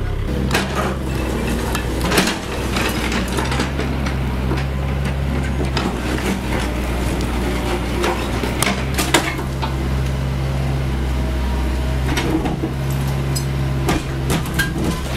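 Diesel engine of a CAT 304E CR mini excavator running steadily under hydraulic load, while its bucket breaks down a concrete block wall. Repeated sharp cracks and clattering knocks come from masonry and concrete slabs breaking and falling onto rubble, the loudest about 2 and 9 seconds in.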